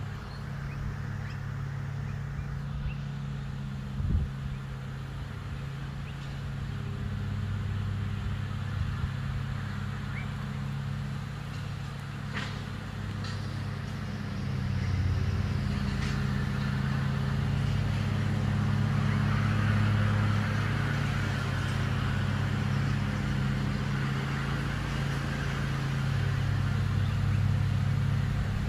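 Massive honey bee swarm buzzing as a steady, dense drone, louder from about halfway through, with one short knock near the start.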